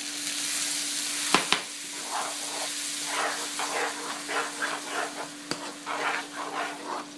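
Water poured into a hot pan of browned ground beef and cream of mushroom soup hisses and sizzles. Two sharp knocks follow about a second and a half in. Then a metal spoon stirs and scrapes the mixture against the pan in quick, repeated strokes.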